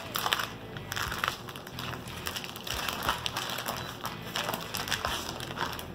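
Clear plastic bag crinkling and rustling in irregular crackles as it is pulled off a raw pork butt.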